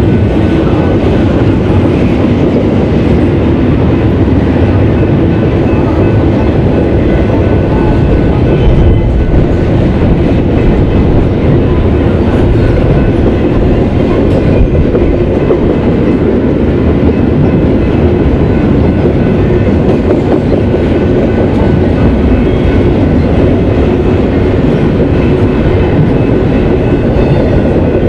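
Double-stack intermodal freight train rolling past, a loud, steady rumble of steel wheels on the rails as the container cars go by.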